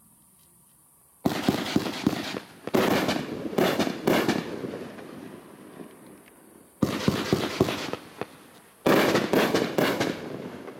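A Razzle Dazzle 500-gram fireworks cake firing in four volleys, about a second in, near three seconds, near seven and near nine. Each volley opens sharply with dense rapid popping that fades over a few seconds.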